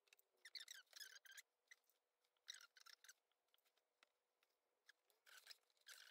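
Faint rustling and sliding of stiff canvas fabric panels being handled and lined up by hand, in a few short bursts.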